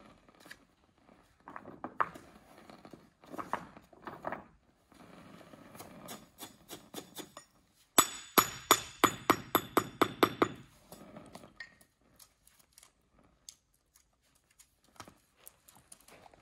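Small granite paving setts clinking against one another as they are placed in a sand bed, then a paving hammer tapping a sett down in a quick run of about a dozen sharp, ringing blows a little past the middle. After that only a few faint taps.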